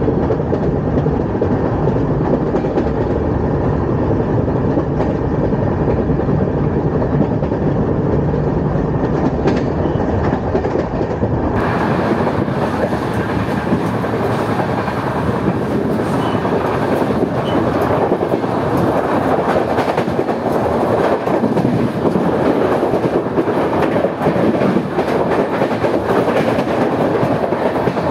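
Train running on the track, wheels rumbling and clacking over the rails in a steady din. About a third of the way in the sound turns brighter, with less of the deep rumble.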